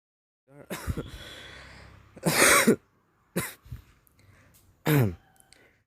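A man coughing four times, in short hard bursts with pauses between, the loudest about two and a half seconds in; coughing from the thick woodsmoke of the firewood cooking fire.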